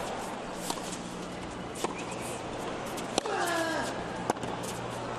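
Tennis rally on a hard court: four sharp ball strikes about a second apart, over a hushed stadium crowd and a steady low hum. Right after the third strike, about three seconds in, a voice calls out briefly, falling in pitch.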